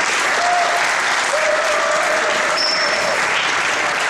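Audience applauding: a steady round of clapping from a roomful of people.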